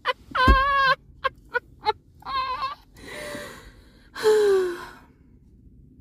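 Hearty laughter: quick ha-ha pulses broken by two high, wavering squeals, then breathy, wheezing gasps for air, the last one sliding down in pitch.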